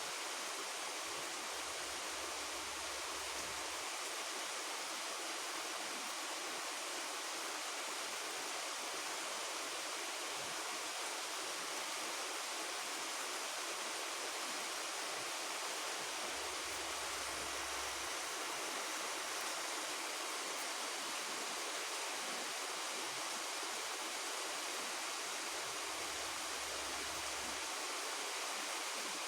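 Rain falling steadily, an even, unbroken hiss. A faint low rumble comes and goes three times beneath it.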